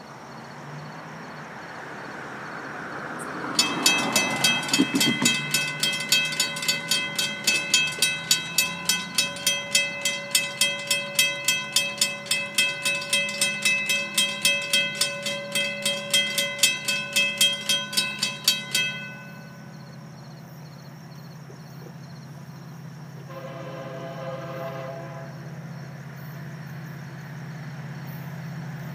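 Railroad grade-crossing bell ringing in rapid, even strokes, warning of an approaching train; it starts a few seconds in and stops abruptly after about fifteen seconds. Later a freight locomotive horn sounds one blast of about two seconds, over a low hum that slowly grows louder as the train nears.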